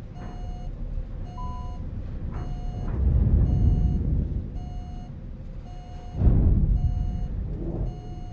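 Airliner cockpit warning alert beeping, one tone about once a second, over a low rumble that swells twice. The Airbus A320 is gliding after losing thrust on both engines to a bird strike.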